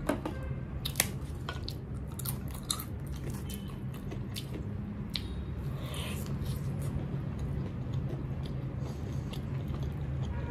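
Close-up eating sounds: wet squishing of dal and rice worked by hand, then biting and chewing a soft deep-fried veg pakora, with scattered sharp mouth smacks and clicks, mostly in the first few seconds. A low steady hum runs underneath.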